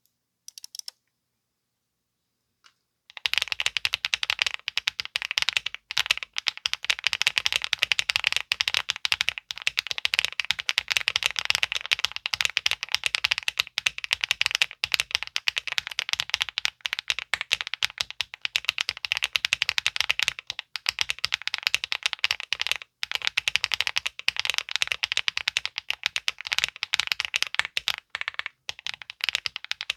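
Fast, continuous typing on a Leobog Hi75 aluminium keyboard with HMX Sunset Gleam linear switches on an FR4 plate, no foam, under Key Kobo Motel keycaps: a dense run of rapid keystrokes that starts about three seconds in, after near silence.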